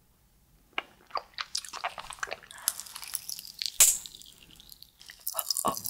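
Close-miked biting and crunching of a thin sheet of homemade red hard candy, in scattered sharp crunches after a brief quiet start, with one sharper snap about four seconds in.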